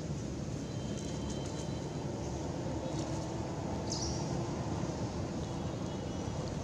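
Steady low outdoor rumble with a few faint high chirps and one short, high squeak about four seconds in.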